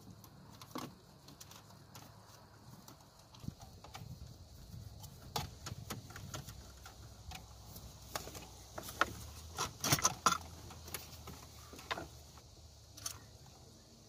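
Plastic dash trim of a 2006 Ford Focus clicking and knocking as it is pried at with a screwdriver and worked loose from around the radio: scattered sharp clicks, busiest and loudest about eight to ten seconds in.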